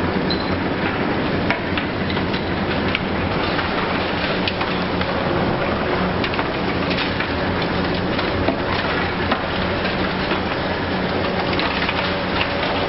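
Hitachi Zaxis 870 high-reach demolition excavator's diesel engine running steadily while its demolition tool crushes building material, with scattered sharp cracks and crunches throughout.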